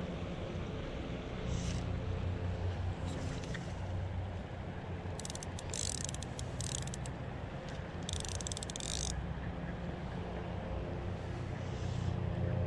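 Steady low rumble of wind and creek water on the camera microphone, with two short spells of quick rasping clicks about five and eight seconds in as the fly line and reel are handled.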